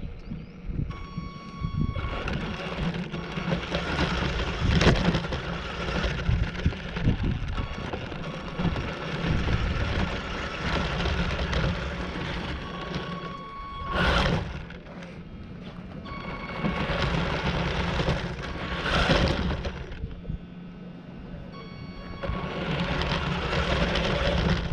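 Radio-controlled car being driven: a steady run of motor and wheel noise that swells in several louder passes, about 14 s, 19 s and again near the end.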